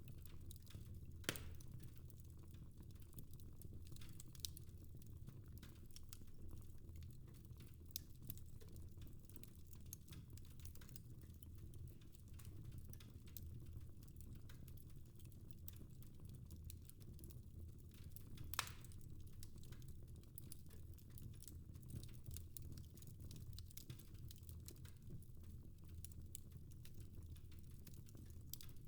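Fire crackling faintly in a fireplace: scattered small irregular crackles over a low steady rumble, with two sharper pops, one about a second in and one about two-thirds of the way through.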